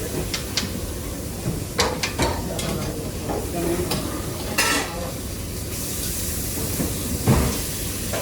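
Restaurant kitchen work: metal pans and utensils knocking and clattering several times over a steady background, with a sizzling hiss that comes in about halfway through.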